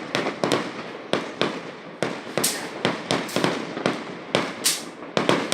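Diwali firecrackers going off in quick succession: sharp bangs about three a second, unevenly spaced, each with a short decaying tail.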